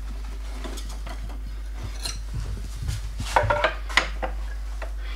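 Clicks, knocks and rattles of a Bosch sliding miter saw being adjusted by hand, its metal and plastic angle mechanism shifted and locked while the saw is switched off. A cluster of sharper knocks comes about three to four seconds in.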